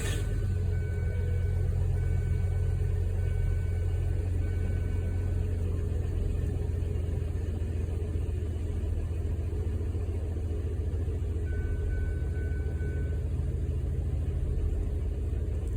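Car engine idling steadily with a low rumble, running with a dead misfire from a bad ignition coil.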